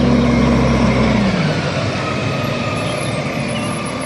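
Heavy truck engine running with a steady low drone, its note winding down and dying about a second and a half in, leaving a steady hiss of traffic-like noise.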